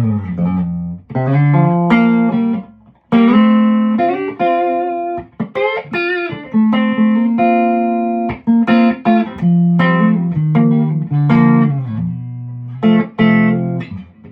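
Tom Anderson Classic electric guitar played through an amplifier on its neck SC stacked single-coil pickup alone, with the VA booster off: a phrase of plucked notes and chords, some of them bent.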